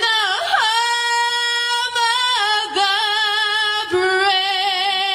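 A female singer singing solo, holding long notes with vibrato, with little or no accompaniment heard.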